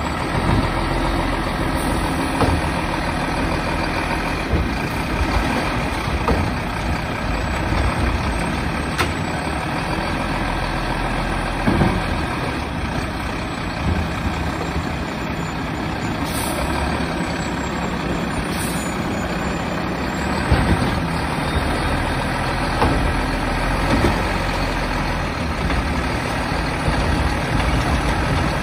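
Mack garbage truck's diesel engine running steadily while its Labrie automated side-loader arm works, grabbing recycling carts and tipping them into the hopper, with a few short knocks along the way.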